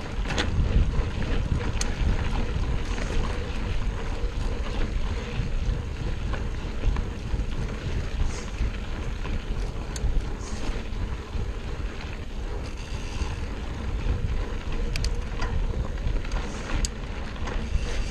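Mountain bike rolling fast along a dirt forest trail: steady tyre and riding noise under heavy wind noise on the microphone, with scattered clicks and rattles from the bike.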